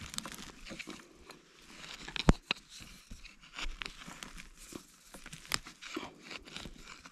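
Wooden-handled digging tool probing and scraping through dry pine needles and forest soil around a matsutake mushroom, giving scattered crunches and crackles. One sharp knock comes a little over two seconds in.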